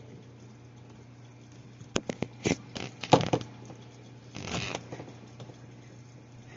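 Handling noises as filter hose tubing is measured out: a cluster of sharp clicks and knocks about two to three seconds in, then a short scraping rustle, over a steady low hum.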